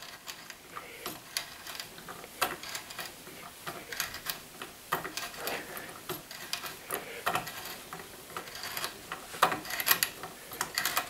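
Ratcheting tap handle clicking irregularly as a 1/4-inch tap is worked by hand into a drilled hole in a stainless steel socket, cutting the thread.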